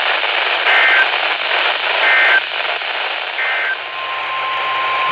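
Weather radio receiver hissing with static, broken by three short bursts of warbling data tones: the SAME digital alert header of NOAA Weather Radio, sent three times. About four seconds in, a steady single-pitched alert tone begins, the signal that a new warning message follows.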